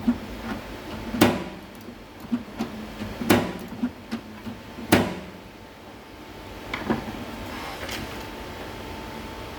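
Sharp knocks and clicks as a microwave oven's door and casing are handled, then a steady hum from about seven seconds in as the oven runs.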